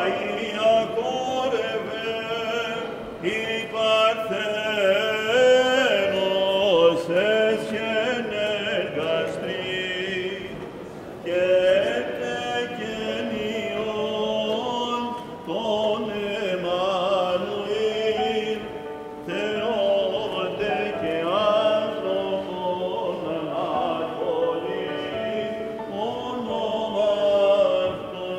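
Greek Orthodox Byzantine chant sung by voices, running through long, gliding, ornamented lines without a break.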